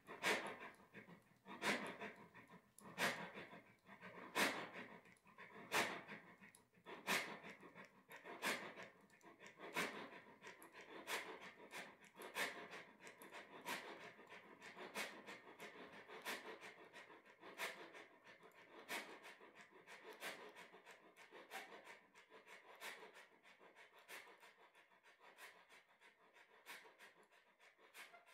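Narrow-gauge steam locomotive chuffing as it pulls its train away. The exhaust beats come slowly at first, about one every second and a half, then quicken and fade as the train moves off.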